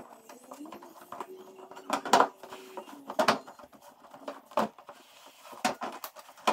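A truck's plastic wheel-well liner being pressed and worked into the fender arch by gloved hands: several sharp plastic clicks and knocks at irregular intervals, about one a second.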